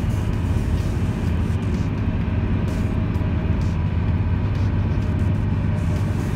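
Car driving at highway speed: a steady low rumble of tyres and road noise.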